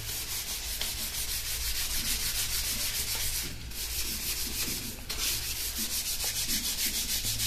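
Stiff scrub brush rubbed rapidly back and forth over a ceramic squat toilet coated with baking soda, scouring at crusted scale, with two brief breaks in the strokes partway through.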